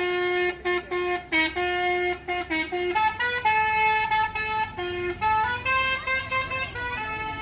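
Bus telolet musical air horn of the basuri type playing a melody: a quick run of short, clipped notes, then longer held notes stepping up and down in pitch.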